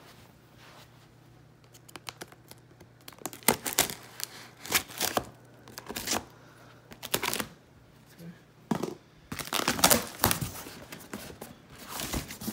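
Packing tape being ripped off a cardboard shipping case and the cardboard flaps pulled open, in a series of loud, irregular rips and rustles starting about three seconds in.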